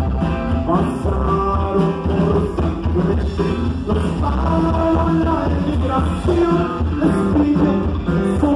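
Norteño band music with singing over a steady, bass-heavy dance beat.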